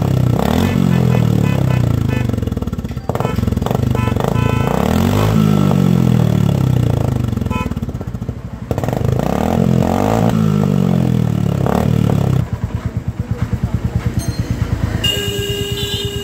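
Royal Enfield Classic 350 single-cylinder engine revved up and back down three times, then settling to a fast, even idle thump. A steady high tone joins near the end.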